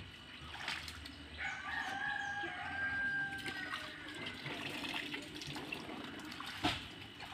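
A rooster crows once, a long held call starting about a second and a half in. Under it, low sloshing and splashing as a person wades in shallow muddy water and drags a hand net through it.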